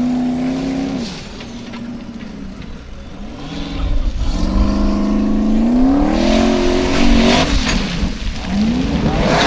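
Formula Offroad buggy's engine revving hard in repeated surges as it climbs a steep gravel hill, the pitch rising and falling with the throttle. It is loudest from about four seconds in.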